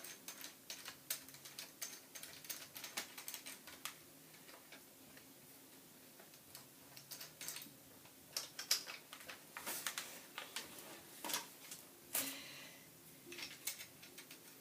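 Light clicks, taps and rattles of plastic airsoft-gun parts being handled and fitted together, as when hooking up the gun's battery. The clicks come quickly through the first few seconds, thin out, then return in louder clusters in the later part.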